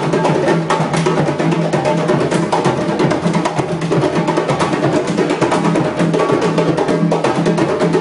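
Drum circle playing together: djembes, a large barrel drum and tall standing drums beating out a fast, dense rhythm, steady and loud throughout.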